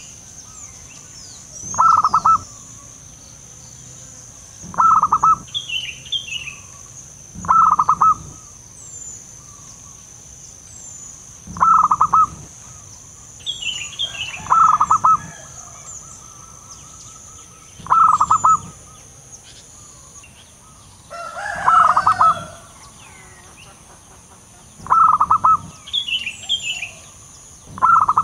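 Zebra dove (perkutut) cooing: a short call of rapid stuttering notes, repeated about every three seconds. Small birds chirp high and briefly between the calls, over a steady high-pitched hum.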